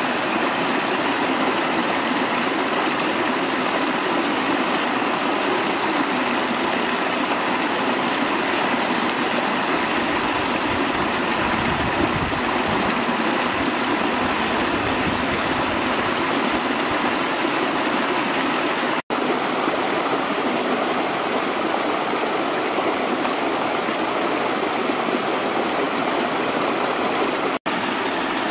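Small rocky stream running and splashing over stones in a steady rush of water. The sound cuts out for an instant twice, about two-thirds of the way through and near the end.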